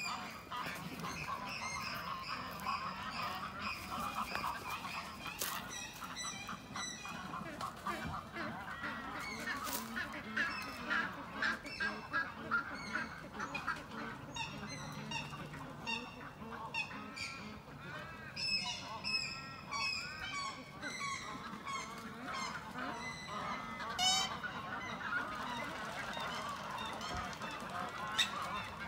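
A nesting colony of Australian white ibis calling: a dense chorus of short, overlapping calls runs throughout, with higher, briefer calls mixed in.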